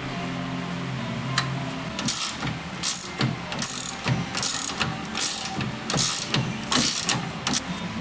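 Hand ratchet wrench being worked in short strokes, about eight rasping clicks-runs at a steady pace, tightening a bolt. A steady low hum runs under it.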